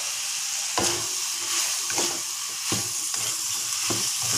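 Winged beans stir-frying in a hot metal wok: a steady sizzle, with a spatula scraping and knocking against the pan about four times.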